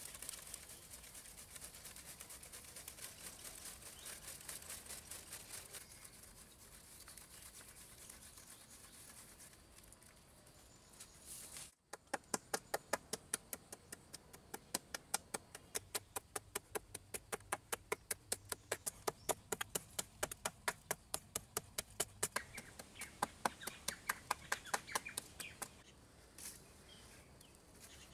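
A woven bamboo basket sieve shaken back and forth, with sand sifting through in a soft steady hiss. About twelve seconds in, after a cut, quick regular clicks, about four a second, of a stone worked against a cement floor.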